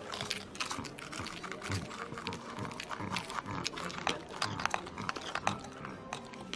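A whole langoustine being crunched and chewed, shell and legs included: many sharp irregular cracks and crunches over wet mouth noises.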